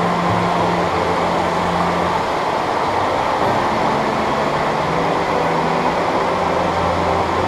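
Steady rush of falling water from a waterfall, with held low music notes underneath.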